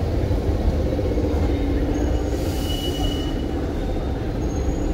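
Brussels metro train braking into the station: a steady low rumble of wheels and running gear, with brief high-pitched wheel or brake squeals, and a short hiss about two and a half seconds in.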